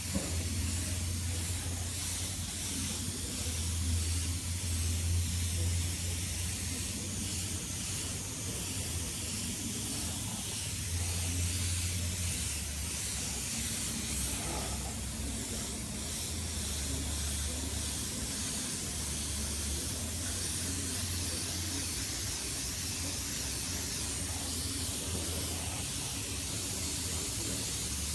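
Air spray gun hissing steadily as it sprays hyper chrome (spray-on chrome) paint onto a motorcycle body panel, with a low hum underneath that comes and goes.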